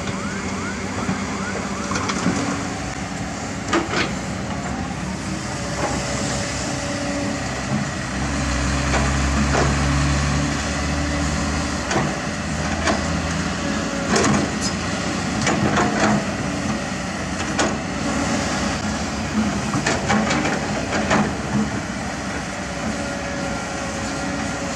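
Hydraulic excavator's diesel engine running, working harder and deeper for several seconds about a third of the way in, with scattered sharp knocks and clanks as the steel bucket strikes and scrapes broken asphalt slabs.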